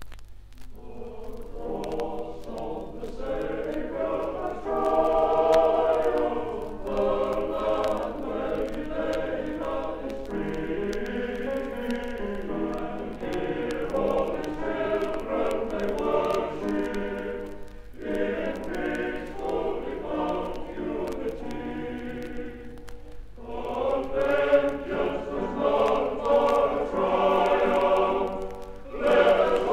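Male voice choir singing in harmony on a 1970 LP record, in sung phrases broken by short pauses, with a steady low hum underneath.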